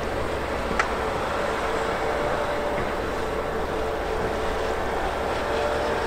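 Diesel engine of a heavy rail snow-clearing machine running steadily, with a steady hum over it and one short click about a second in.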